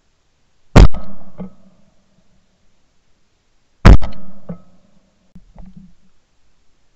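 Two shotgun shots about three seconds apart, each a sharp blast with a short ringing tail and a fainter crack about half a second later. A few faint knocks follow near the end.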